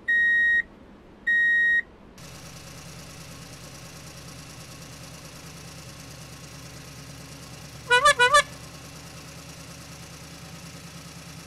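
Cartoon vehicle sound effects: a reversing beeper sounds twice, then a steady low engine hum starts about two seconds in and runs on. About eight seconds in comes a short warbling sound of three quick pulses.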